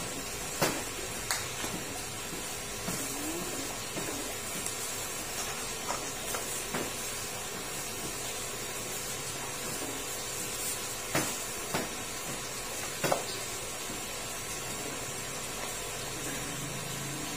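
Raw crab pieces tossed by gloved hands in tapioca flour in a metal bowl: several sharp clacks of shell against the bowl, scattered over a steady background hiss.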